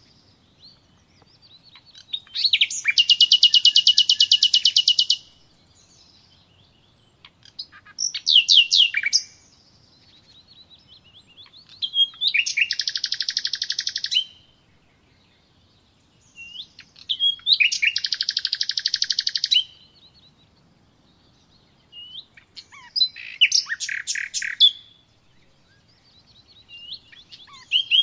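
Songbird singing: about five phrases of fast, rapid-fire high trills, each one to three seconds long, with quiet pauses of a few seconds between them.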